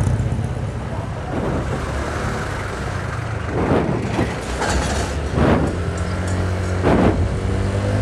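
Small motorcycle engine running at a steady low hum while riding along a street, with brief gusts of wind noise on the microphone every second or so.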